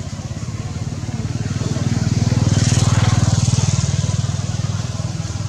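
A motor vehicle engine passing by: a low, rapidly pulsing engine hum grows louder to its loudest about halfway through, then fades.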